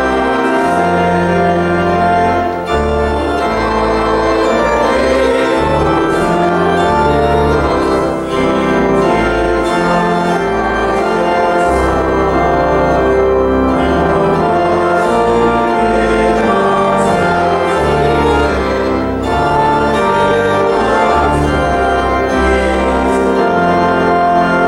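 A hymn sung to church organ accompaniment: sustained organ chords over a bass line that moves every second or two, with voices singing along.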